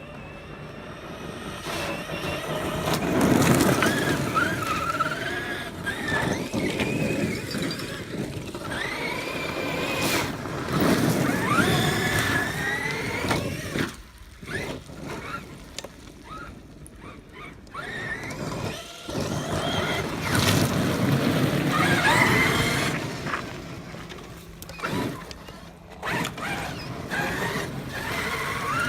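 Traxxas X-Maxx 8S RC monster truck's brushless electric motor whining as it is driven in bursts, the whine rising and falling in pitch with the throttle. There is a quieter stretch about halfway through, between the runs.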